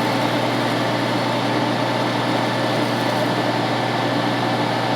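Hydraulic grapple saw running steadily with its chain cutting through a gripped tree trunk, over a constant low drone from the machine.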